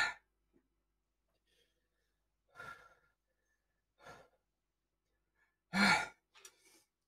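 A man's sharp sighs and breaths, a few seconds apart, as he breathes through the burn of very spicy chicken ramen. The loudest comes near the end, a voiced sigh with a quick breath after it.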